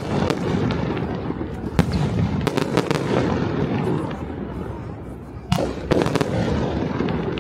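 Fireworks display: sharp bangs of shells bursting, a quick cluster of several about two and a half seconds in and two more a little past halfway, over a continuous din of further bursts and their echoes.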